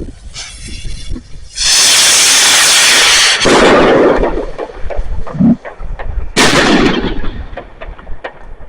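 Fireworks going off: a very loud blast about two seconds in that lasts nearly two seconds, a second loud burst a little after the middle that fades away, and scattered sharp cracks throughout.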